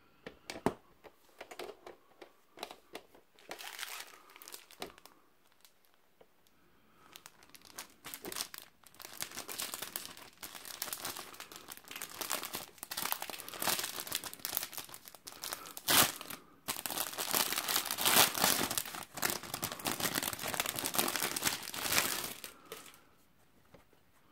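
Clear plastic packaging crinkling and rustling as hands open it and slide out a folded cotton tenugui. Scattered light handling clicks come first, then denser, louder crinkling from about eight seconds in, with one sharp snap about sixteen seconds in, dying away near the end.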